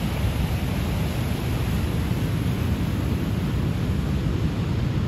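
Steady rushing noise of surf breaking on a rocky shore, mixed with wind buffeting the microphone.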